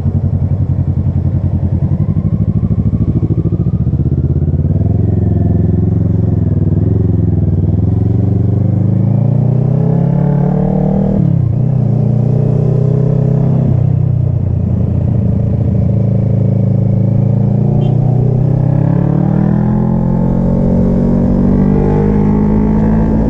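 Kawasaki ER-6n's parallel-twin engine pulling under way: the pitch climbs, drops sharply at gear changes about eleven and fourteen seconds in, then climbs steadily again.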